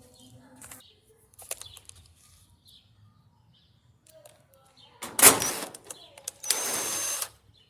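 Screw being driven into the dryer's sheet-metal cabinet: small clicks of handling, a loud knock about five seconds in, then a power driver runs for under a second with a thin whine, the screw spinning in a hole worn too wide to tighten.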